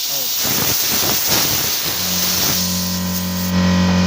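Hissing spray blasting the chainsaw's air filter clean, followed about two seconds in by a loud steady hum with many overtones that runs on to the end.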